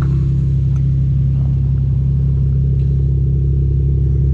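Naturally aspirated Toyota 2JZ inline-six in a Lexus idling steadily with an even, low note.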